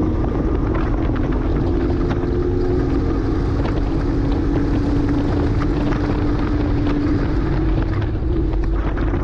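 2009 Porsche Cayman S's flat-six engine pulling hard at steady revs on track, its note slowly sinking in pitch. Under it run constant road and wind noise and scattered short ticks.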